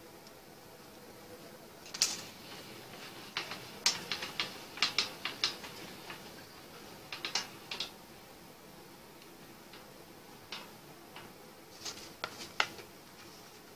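Irregular sharp clicks and light knocks of a thin sheet-metal strip being handled on a wooden workbench and clamped between the bench's jaws. The clicks come in a quick cluster about two to five seconds in, then a few more later.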